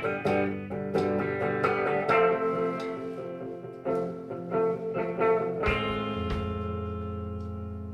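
Guitar playing the instrumental opening of a song, live: a run of picked notes, then a chord left ringing and slowly fading for the last couple of seconds.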